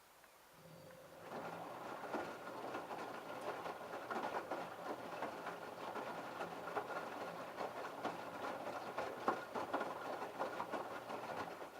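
LG F1222TD direct-drive washing machine turning its drum during the prewash: a low motor hum under the patter and clatter of wet laundry and water tumbling. It starts about half a second in, builds over the first second or so, and stops sharply near the end as the drum pauses.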